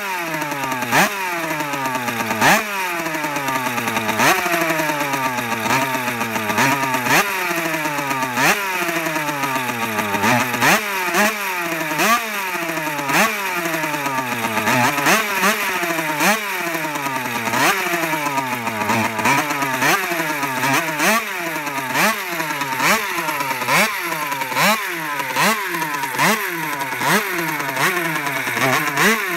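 Van Veen 50 racing motorcycle's 50 cc two-stroke single, stationary, being revved in short sharp blips, about one every second and a half, each rev cracking at its peak and then falling back in pitch before the next.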